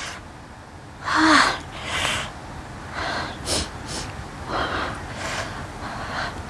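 A woman gasping and hissing air in and out through bared teeth, a string of short breathy bursts, the first and loudest about a second in with a brief voiced whimper. It is a reaction to her mouth burning from ghost pepper chilli heat.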